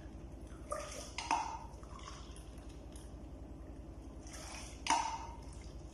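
Rice and water being stirred in a pot, with liquid sloshing and three short clinks of the utensil against the pot.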